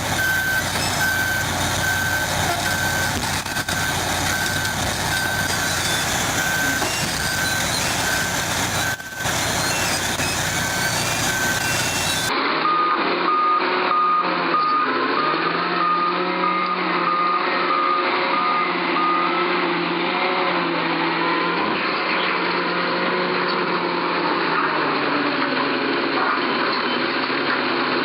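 Reversing alarm of a heavy construction machine beeping steadily over its running diesel engine; about twelve seconds in the sound changes to another machine with a lower-pitched reversing alarm, which stops a few seconds before the end while the engine keeps running.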